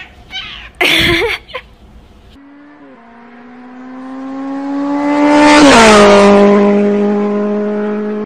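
A brief loud cry about a second in. Then an electric treadmill's motor whine starts, rising slowly in pitch and growing louder. About three seconds before the end it drops sharply in pitch and runs on steady.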